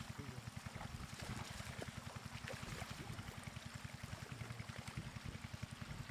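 Shallow floodwater running through grass, with splashes and small ticks as hands and a woven bamboo basket trap are worked in the current.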